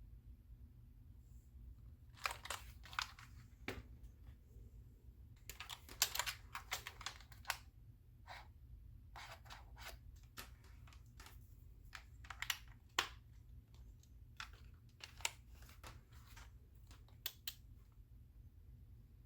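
Keys pressed in short irregular bursts with pauses on a budget GEODMAER 65% 'mechanical feel' keyboard, a membrane board rather than true mechanical switches, giving sharp plastic clicks.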